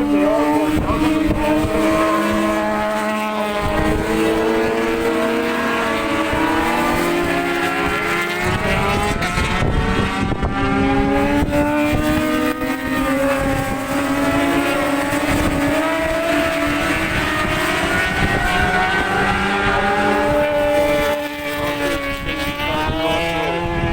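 Several racing motorcycle engines at high revs as a pack of bikes circulates, their overlapping pitches rising and falling with gear changes and as the bikes pass.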